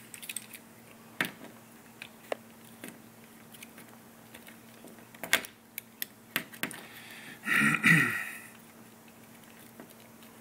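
Scattered clicks and taps of a multi-tool's screwdriver bit driving a screw through a thermostat base into drywall, with one louder burst lasting under a second about seven and a half seconds in.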